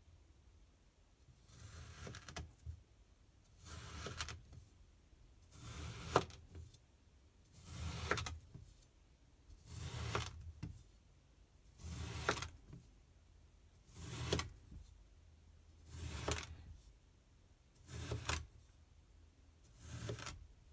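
Kinetic sand being sliced with a knife, about ten slow cuts at a steady pace of one every two seconds. Each cut is a soft, crunchy, grainy scrape that ends in a short sharper crunch.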